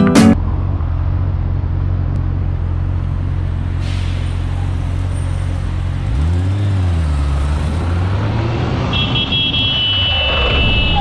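A few strums of guitar music cut off just after the start. Then a motorcycle engine idles in city traffic, with one quick rev that rises and falls about six seconds in, and a high steady whine joins about nine seconds in.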